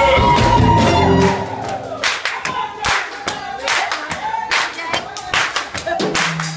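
Live band with a singer. A little over a second in, the instruments drop away, leaving steady handclaps about two a second with singing over them.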